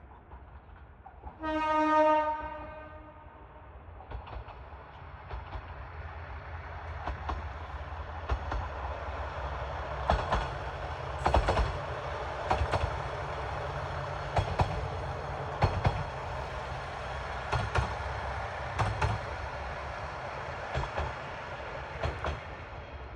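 Kishu Railway diesel railcar KR205 sounds its horn once, for about a second, then runs past with a steady low engine rumble. Its wheels click sharply and irregularly over the rail joints for much of the pass.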